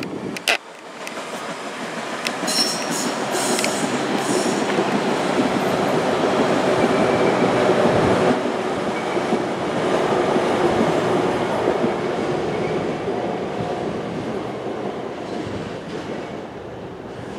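PATCO rapid-transit train passing at speed, a steady rumble of wheels on rail that is loudest about eight seconds in and fades as the train moves away. A brief click sounds right at the start.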